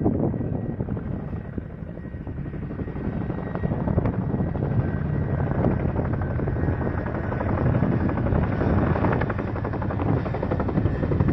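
Tandem-rotor Chinook helicopter on its approach to land: a fast, steady beat of rotor blades with a faint high turbine whine, growing louder from about two seconds in.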